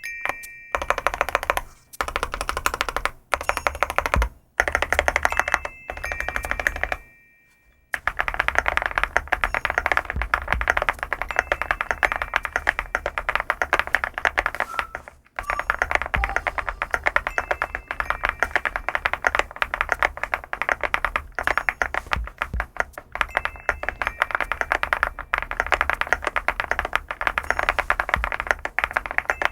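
Typing on an SPM LUCK68 custom mechanical keyboard: a few short bursts of keystroke clacks, then fast continuous typing from about eight seconds in. Brief high steady tones sound a few times over the typing.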